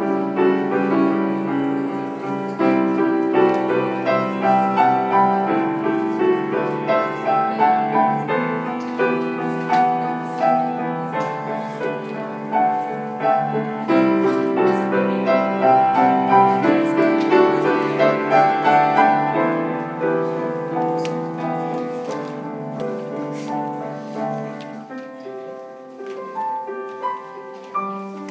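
Grand piano played solo: a melody over full sustained chords. It thins to fewer, softer notes near the end.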